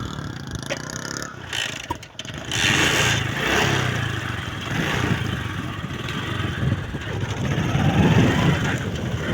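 Motorcycle engine running as the bike moves off, dipping briefly about two seconds in and then getting louder.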